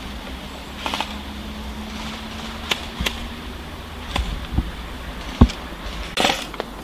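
Scattered single airsoft gun shots: sharp clicks and cracks at irregular intervals, with a low thump about five seconds in and a short rasping burst near the end, over a steady low rumble.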